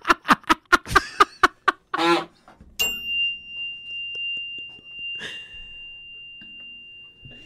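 Men laughing hard in quick bursts, which die away about two seconds in. About three seconds in, a single high ringing tone starts sharply and holds steady through the rest, like a struck chime.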